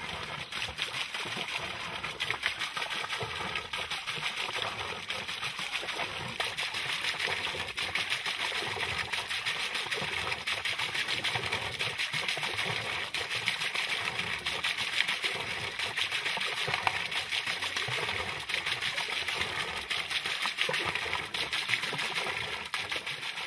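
Water pouring off the end of an open chute and splashing steadily onto the water below.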